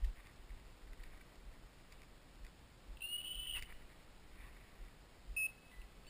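An English setter's electronic beeper collar sounding a steady high beep of about half a second roughly three seconds in, and a much shorter beep near the end, the kind of signal such a collar gives while the dog holds a point. A brief low bump sounds at the very start.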